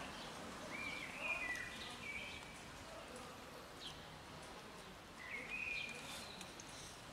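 Two short whistled bird calls, about a second in and again about five seconds in, over a low outdoor hiss. Faint crunching of cats chewing dry kibble comes near the end.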